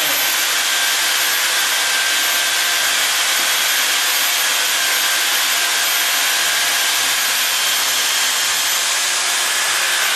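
iTOOLco Cannon 6K capstan wire puller running steadily under load, its drill motor giving a steady whine over a rushing hiss as the rope hauls 500 MCM cable through the sheave.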